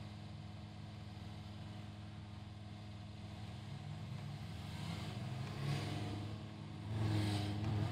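Car engine idling, heard from inside the cabin, with slow city traffic around it: a bus moves past alongside, and about seven seconds in the traffic pulls away and the engine sound gets louder and rises in pitch.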